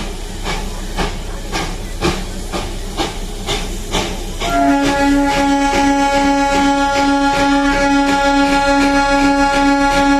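Darjeeling Himalayan Railway toy train's steam locomotive chuffing at about two beats a second. About four and a half seconds in, a long steady whistle starts and holds.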